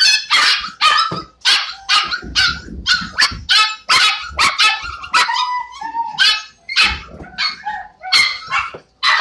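A small puppy barking nonstop in quick, high-pitched yaps, about two or three a second.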